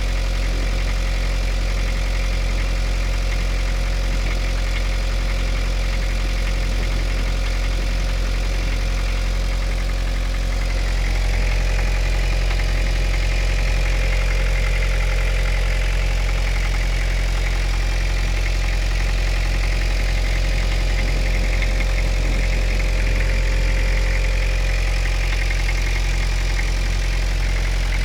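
Toyota 2C four-cylinder diesel engine idling cold, with a knock that is heard only when the engine is cold and that the owner cannot trace. The sound gets a little louder and brighter about eleven seconds in.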